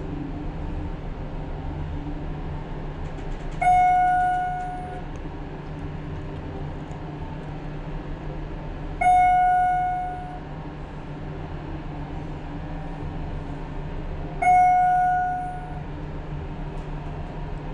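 Schindler MT/300A hydraulic elevator car descending, with a steady low hum throughout. A single-tone chime rings three times, about every five seconds, as the car passes floors.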